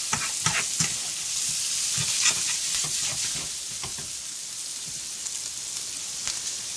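Sliced onions sizzling in hot oil in a frying pan over medium-high heat, with a utensil clicking and scraping against the pan now and then as they are stirred, mostly in the first couple of seconds.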